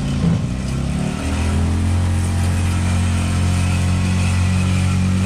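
Engine of a small themed ride train running; its pitch rises about a second in as the train gets under way, then holds steady.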